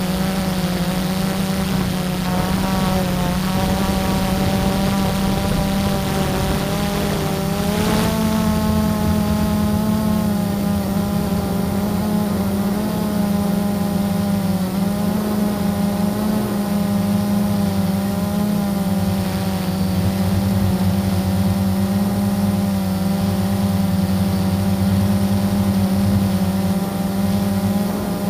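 Blade 350 QX quadcopter's brushless motors and propellers whining steadily in flight, heard from the camera on board; the pitch wavers slowly up and down as the motors change speed.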